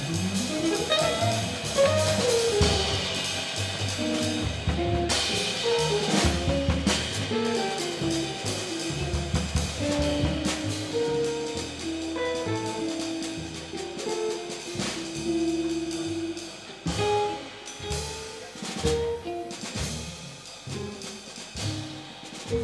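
Live jazz trio playing: a hollow-body electric guitar plays single-note melody lines over walking upright bass and a drum kit with cymbals. The playing thins out and gets quieter over the last few seconds.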